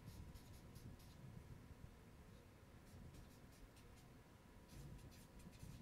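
Faint scratching of a felt-tip marker writing on flip chart paper, in several short groups of strokes.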